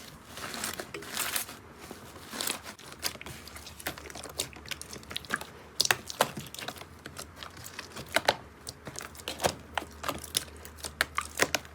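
Slime being squeezed and poked by hand, giving irregular crackles and pops that come sharper and more often in the second half.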